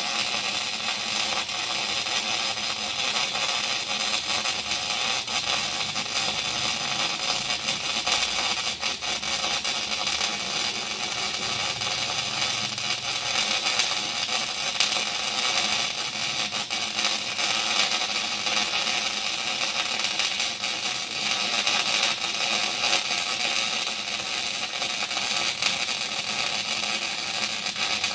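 Electric arc welding: the arc's steady crackling hiss as a weld is run, unbroken for the whole stretch.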